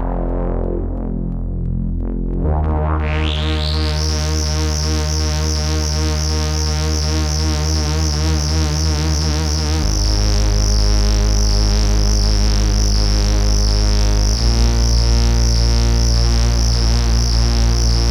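Ad-vantage 03m monophonic semi-modular analog synthesizer holding a low, buzzy drone. About two and a half seconds in, the filter opens over about a second into a bright, fizzy tone, and the low note steps to a new pitch twice, about ten and fourteen seconds in.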